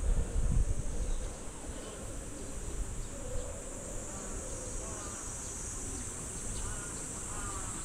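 Steady, high-pitched insect drone that does not let up, with a few faint short chirps in the second half.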